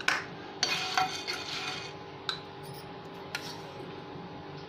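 Spoon stirring and scraping whole dried red chillies and black peppercorns as they dry-roast in a nonstick frying pan over low heat. A few short scrapes and clicks come in the first three and a half seconds, over a steady faint hum.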